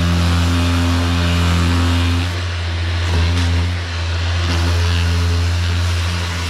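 Power sander running over body filler on a car panel with 240-grit paper: a steady motor hum with sanding hiss. It dips briefly just past two seconds and again about four seconds in, as the load on the pad changes.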